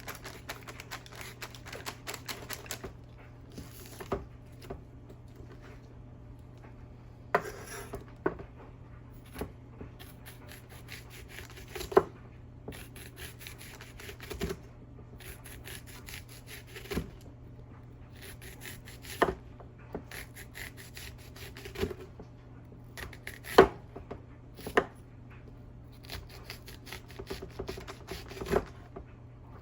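Kitchen prep at a cutting board: irregular knife clicks and knocks on the board, with a few sharper knocks every couple of seconds.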